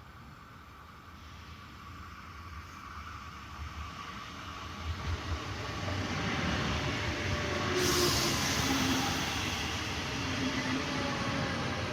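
Renfe Cercanías commuter train approaching a station, its rumble growing steadily louder. A hiss comes in suddenly about eight seconds in, and faint squealing tones follow as it draws in.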